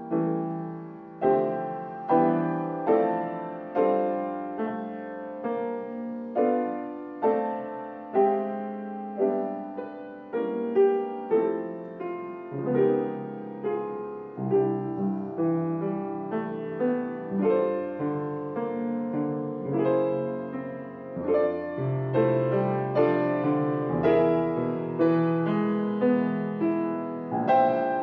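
Solo piano playing a slow, gentle piece: notes and chords struck about once a second, each left to ring and fade.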